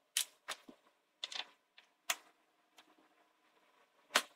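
Irregular sharp plastic clicks and knocks, about six of them with one of the loudest near the end, from handling a mini sewing machine and plugging its power adapter cord in.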